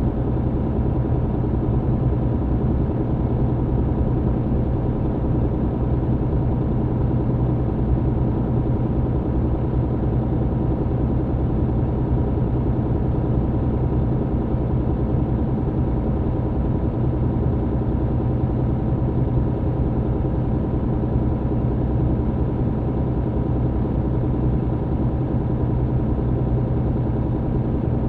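MAN TGX truck's diesel engine and road noise heard from inside the cab while driving: a steady low drone that holds the same pitch and level throughout.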